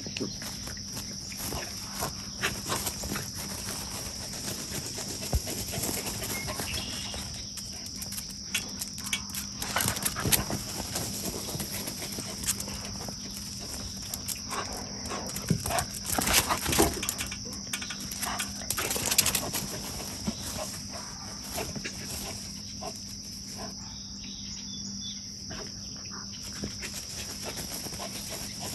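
Dogs romping and wrestling on grass, with scattered short scuffling noises from their play over a steady, high-pitched insect drone of crickets. A steady low hum runs underneath.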